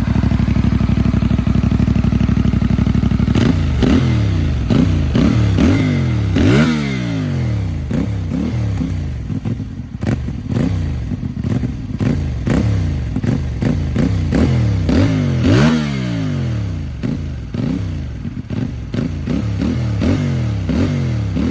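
CFMOTO 450MT's parallel-twin engine on its stock exhaust, idling steadily for about three seconds, then revved in quick throttle blips. The blips come about once a second, each rising in pitch and dropping back, and a few reach higher.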